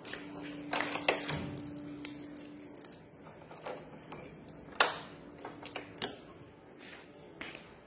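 Sharp, uneven metallic clicks and rattles of the moped's ignition key being worked in its lock and of the handlebar switches being handled, with the loudest clicks about a second, five seconds and six seconds in. A faint steady hum runs under them and stops about six seconds in.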